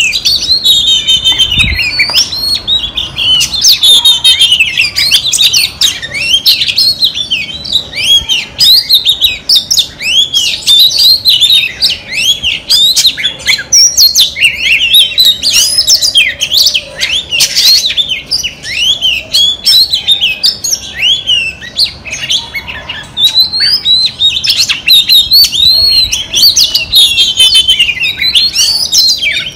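Female Oriental magpie-robin singing a loud, unbroken run of quick, sweeping whistled notes and chirps.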